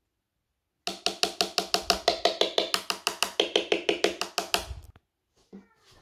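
A rapid, even run of pitched, wood-block-like knocks, about nine a second. It starts about a second in out of dead silence and stops abruptly near the end.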